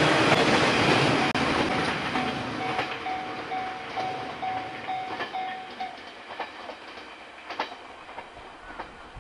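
JR West 115 series electric train passing close and running away down the line: the rush of its passing fades steadily while the wheels click over the rail joints more and more faintly. A pulsing high tone, about two beats a second, sounds for a few seconds in the middle.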